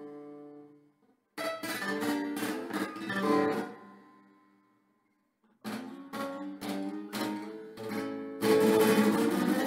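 Acoustic guitar played solo. A chord rings out and dies away, then comes a burst of strummed chords. After about a second of silence, quick strummed strokes build to louder, fast strumming near the end.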